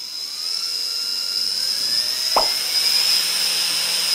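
775 DC motor running on a PWM speed controller and spinning up, its whine rising steadily in pitch and loudness as the speed is turned up.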